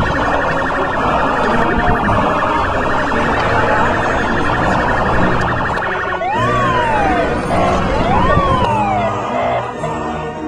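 Dense city noise with a rapid pulsing buzz for about the first six seconds, then an emergency-vehicle siren wailing up and falling back twice.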